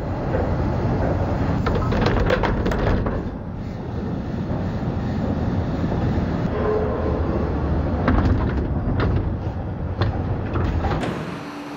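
Refuse-collection truck machinery running: a steady low engine rumble with scattered clanks and rattles from the lifting gear.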